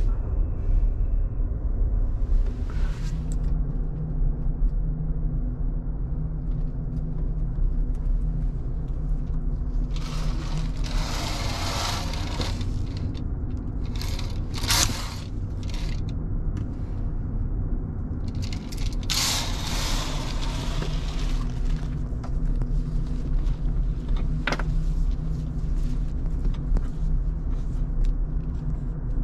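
Steady low drone of a ferry's engines and machinery heard inside a passenger berth. Two rustling scrapes about ten and nineteen seconds in come from the berth's pleated curtain being drawn and handled, and a few light clicks sound among them.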